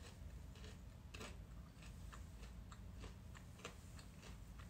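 Faint chewing while eating: a string of soft, irregular mouth clicks, about two or three a second, the loudest a little over a second in.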